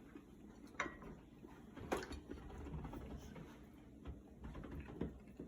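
Faint clicks and knocks of plates and utensils being handled at a table in a small room, with two sharper clicks about a second apart near the start.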